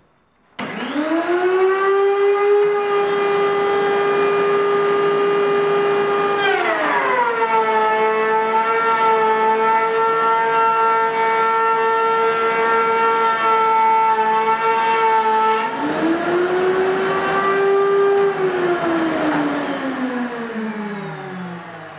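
A self-feeding router table's four 2-1/4 hp routers and dust vacuum switch on and spin up to a high steady whine. About six seconds in, the pitch drops and holds lower while the power feeder pushes a board through the cutters, then rises again once the board is clear. Near the end it falls steadily in pitch as the machine winds down after switch-off.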